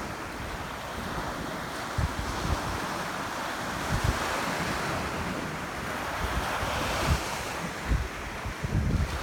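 Ocean surf washing steadily, swelling a little in the middle, with wind gusting on the microphone.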